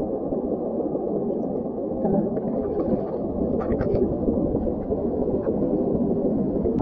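Steady, muffled low rush of sea water washing over the shore rocks. A few short scrapes of a knife blade on rock come about three and a half seconds in.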